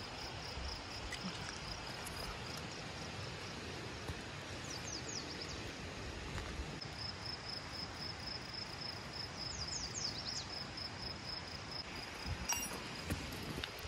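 Rural outdoor ambience: a steady high-pitched insect trill, with short falling bird chirps about five and ten seconds in and a few faint clicks near the end.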